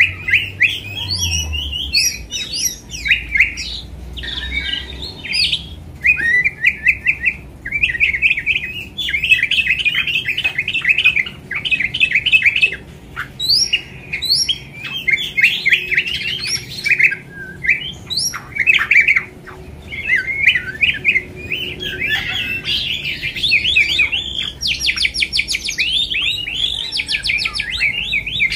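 White-rumped shama singing a long, varied song: quick chattering phrases and clear whistled notes follow one another almost without a break, and a fast, even trill comes near the end.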